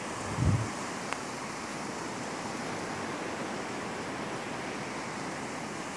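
Sea surf breaking and washing onto a sandy beach, a steady hiss of waves, with a brief low thump about half a second in.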